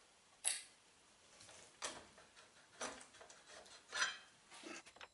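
Five light metallic clinks and taps, spread over a few seconds, as steel parts are handled at a shaft collar on a steel plate.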